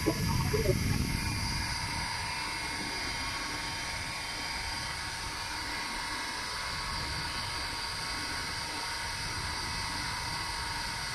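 Fountain running: a steady mechanical whine with several constant high tones over an even hiss, with a few brief knocks in the first second.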